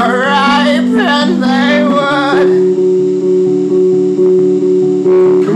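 A man singing long wavering notes without words over an electric guitar strumming a repeated chord; the voice stops a little over two seconds in and the guitar carries on alone.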